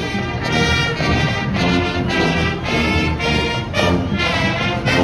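Brass marching band playing a tune, trumpets to the fore, with a sousaphone in the band.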